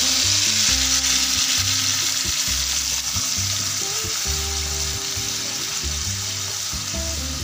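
Tomato purée sizzling in hot oil with chopped garlic in a frying pan, stirred with a wooden spatula. The sizzle is strongest at first and eases a little as the purée settles.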